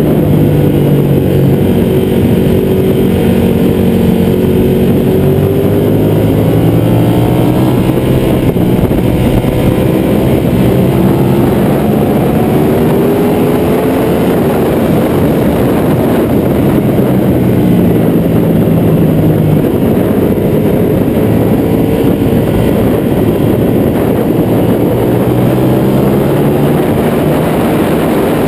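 Ducati 1199 Panigale's Superquadro V-twin engine at track speed, its pitch rising and falling repeatedly as it revs up and shifts, under heavy rushing wind noise on a fairing-mounted camera.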